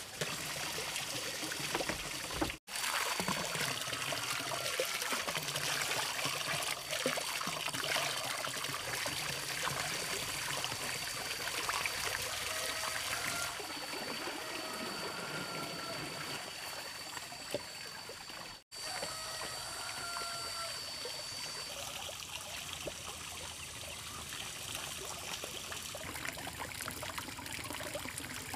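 Water running and trickling, a steady splashing hiss, cut off for an instant twice.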